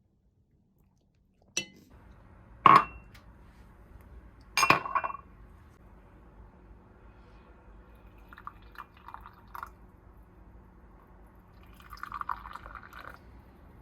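Three sharp clinks of glassware or crockery being set down or knocked, the loudest about three seconds in, followed by softer handling sounds, possibly with liquid, over a low steady hum.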